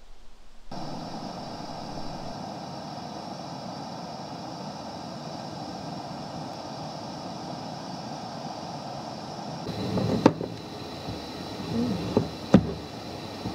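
Steady road and engine noise of a car on the move, starting abruptly about a second in. From about ten seconds in come several sharp knocks and low bumps.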